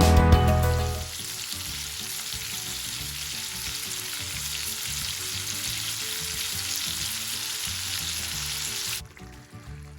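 Food frying in hot oil in a pan: a steady sizzle that cuts off suddenly about nine seconds in.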